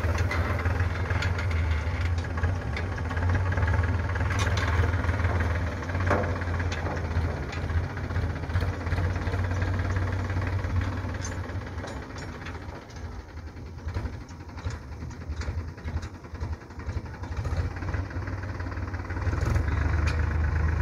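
Powertrac Euro 50 tractor's diesel engine running as it tows a paddy threshing machine, with scattered knocks and rattles. The sound fades as the tractor pulls away and grows louder again near the end.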